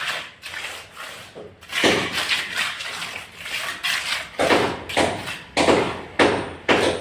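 Repeated sharp knocks, each with a short ring after it, a few scattered at first and then coming about twice a second in the second half.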